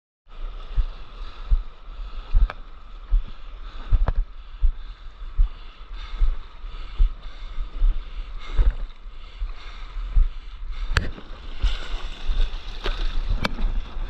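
Sea water splashing and lapping against a paddled surfboard on a gently rippled sea, with wind buffeting the microphone in irregular low thumps and a few sharp clicks.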